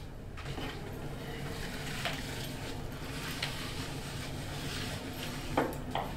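Steady low hum with faint rustles and a few soft taps as hands pat down a man's clothing in a search, two sharper taps near the end.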